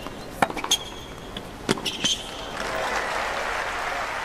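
Tennis rally on a hard court: a few sharp racket-on-ball hits and a short shoe squeak in the first two seconds. From about two and a half seconds in, the crowd applauds as the point ends.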